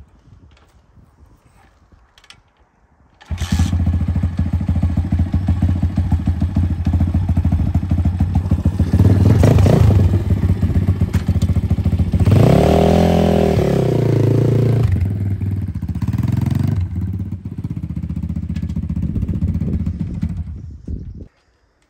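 Stomp 140 pit bike's 140cc four-stroke single-cylinder engine starts about three seconds in and runs while the bike is ridden, revving up and back down twice before it cuts off near the end. It is run briefly on fresh oil after an oil change, to circulate the oil before the level is checked.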